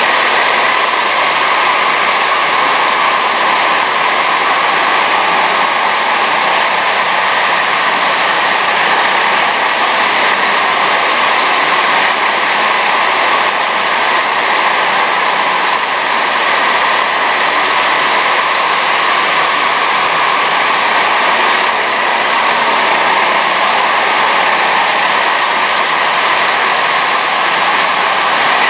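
Steady, unchanging din of an indoor karting hall while rental karts run laps. No single engine or passing kart stands out.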